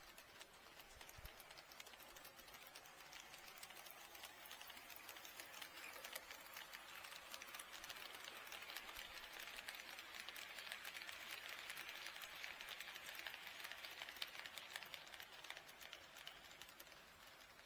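HO-scale model train running along the track: a rapid, dense clicking of wheels and running gear over the rails with a light motor whirr. It grows louder to a peak about two-thirds of the way through, then eases off.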